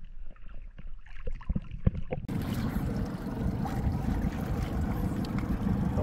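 Muffled water sloshing with a few knocks against a camera at the sea surface. About two seconds in it changes to a steady rush of wind on the microphone and water around a boat.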